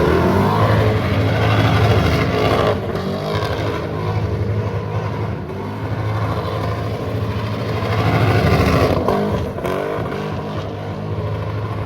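Car engine revved hard near its redline during a donut, its pitch surging up and down with the throttle, over the rush of spinning, sliding tyres.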